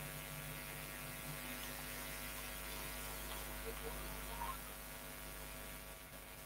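Steady electrical mains hum with its overtones, a faint buzz picked up on an open call microphone or audio line; it eases off slightly near the end.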